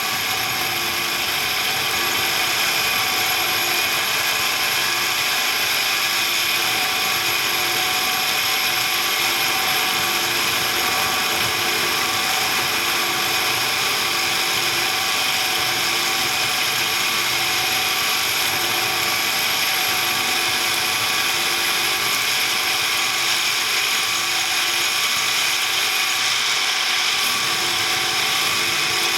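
An electric workshop power tool starts suddenly and runs steadily at a constant speed, a continuous mechanical noise with several steady tones.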